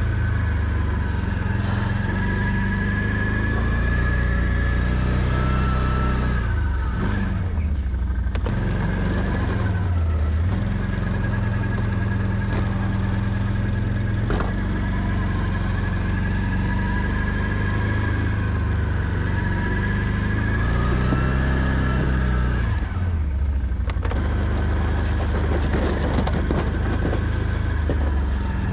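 Can-Am Outlander 650 ATV's V-twin engine running while plowing snow, with a steady high whine over it. The engine note drops and climbs back twice, about a quarter of the way in and again about three quarters through, as the throttle is eased and opened again.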